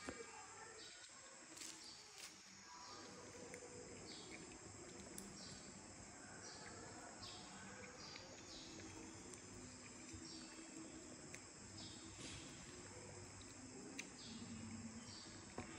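Faint insects chirping in the background, a short chirp repeating about once a second over a steady high hiss, with a few faint clicks.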